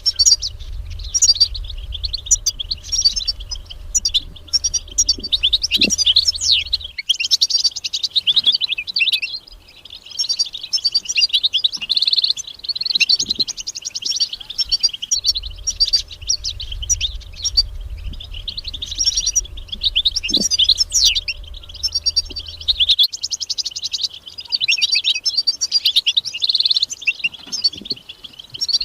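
European goldfinch singing: a long, fast, tinkling twitter of chirps and trills that runs on with only short breaks. A faint low rumble sits under it for stretches.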